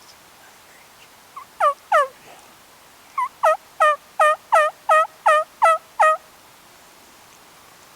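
Turkey yelps: a couple of single yelps, then a steady run of about nine yelps at roughly three a second, each note dropping sharply in pitch.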